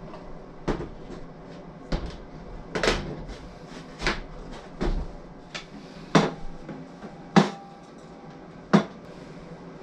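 Irregular sharp wooden knocks and clacks, about nine in all, the loudest two in the second half, as a wooden darts-board cabinet and a wooden wall-clock case are handled and set against the wall.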